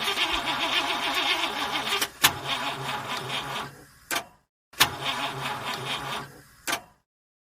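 Car engine cranking on a weak, dead battery without starting: the starter turns the engine over in three separate tries, each cut off with a sharp click.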